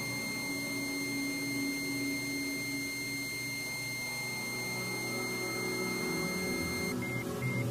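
Ambient meditation drone track: low sustained pads shift slowly beneath a steady high-pitched pure tone. Near the end the high tone breaks into short, evenly spaced beeps.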